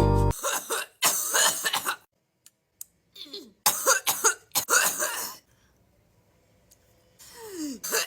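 A woman coughing hard in several separate fits, the harsh cough that follows a big hit from a cannabis vape. A strained sound falling in pitch comes near the end.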